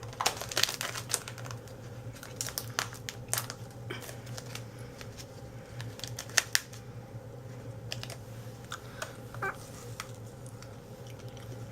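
Irregular crinkling and clicking of a single-serve chia supplement packet being handled and opened, busiest in the first few seconds and sparser after, with one sharp click about six seconds in.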